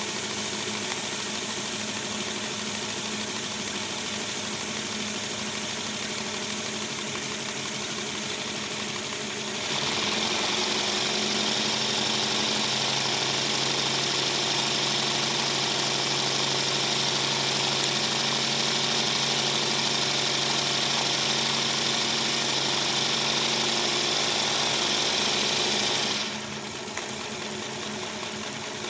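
Aster live-steam model locomotive Lion running on a test stand's rollers: a steady hiss of steam with the whir of the wheels and motion. The hiss grows louder about a third of the way in and drops back a few seconds before the end.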